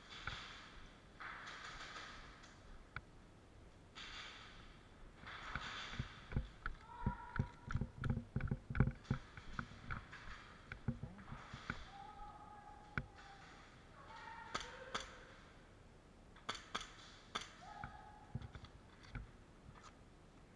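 A player moving on foot: bursts of rustling, then a run of quick low thuds from footsteps about halfway through, and a few sharp clicks near the end.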